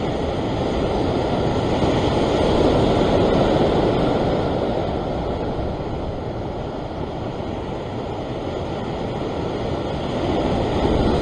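Ocean surf breaking and washing against a rock ledge, a steady rushing that swells a couple of seconds in, eases off in the middle and builds again near the end.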